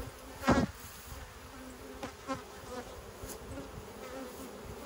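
Honeybees buzzing over an open hive, a steady hum. A short louder sound stands out about half a second in.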